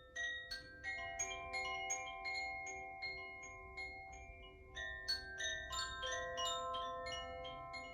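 Makino-style healing chimes struck with a mallet, one note after another at about three strikes a second, each note ringing on and overlapping the next to form a slow melody.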